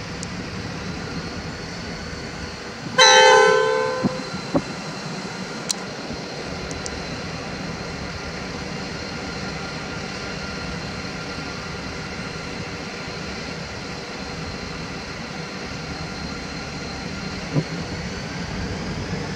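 Diesel freight locomotive horn sounding one short blast about three seconds in, over the steady low hum of the locomotives' diesel engines running.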